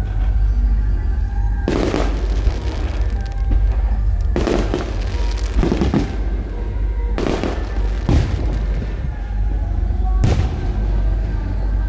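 Aerial fireworks bursting: about six booms that echo out, coming every one to two seconds, over a steady low rumble and background music.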